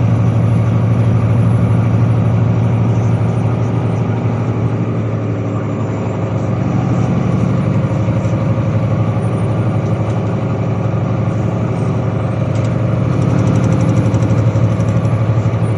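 Volvo 9800 coach's D13C 13-litre inline-six diesel engine running steadily, easing off slightly about five seconds in and picking up a little near the end.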